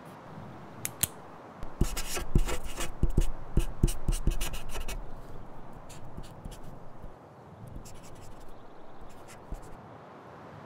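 Pen scratching across a notebook page as someone writes, with a louder, busier stretch of quick scratchy strokes from about two to five seconds in, then fainter scratching.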